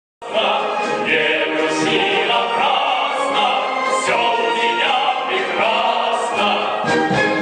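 Singing in a stage musical, operatic in style, with vibrato on held notes over orchestral accompaniment. It starts abruptly a moment in.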